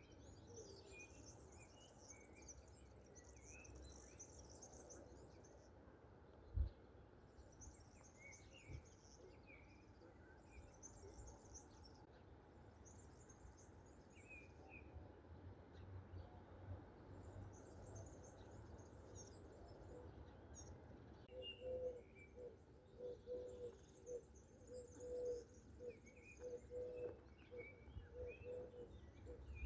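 Faint songbirds chirping and twittering in high, thin notes. About two-thirds of the way through, a bird joins in with short low notes repeated about once or twice a second. A single low thump comes about a quarter of the way in.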